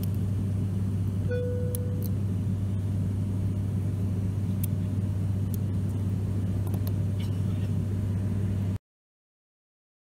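Steady, loud cabin drone of an ATR 72 turboprop's engines and propellers in flight, with a few faint clicks and a short beep-like tone about a second in. The drone cuts off abruptly near the end.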